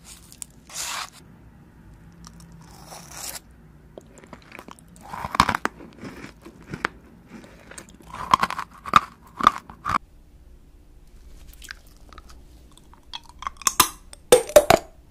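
Close-miked eating of a crumbly chocolate flowerpot dessert: a scoop scraped from the pot, then bursts of crunching and chewing. A second run of loud, crunchy bites comes near the end.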